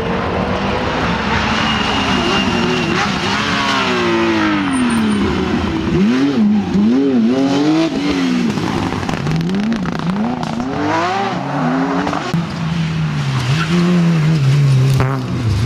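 Rally cars passing at speed on a tarmac stage, their engines revving up and dropping again and again through gear changes and lifts off the throttle.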